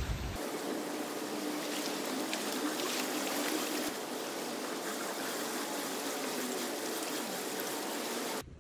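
Swimming-pool water trickling and splashing in a steady wash that cuts off suddenly near the end.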